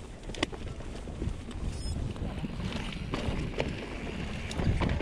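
Mountain bike rolling fast down a dirt and leaf-covered trail: a steady rough rumble of tyres and wind on the microphone, with a few sharp knocks and rattles from the bike over bumps.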